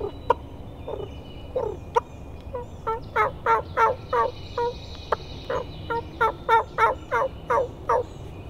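A hen turkey's cluck and purr imitated with a person's voice: a few single falling clucks about half a second apart, then a quick run of about fifteen short calls at roughly three a second.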